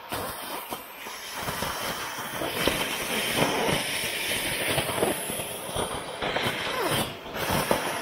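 Gutter vacuum pulling wet leaves and debris up through its pole nozzle: a steady rush of suction with debris rattling and clattering through the pipe.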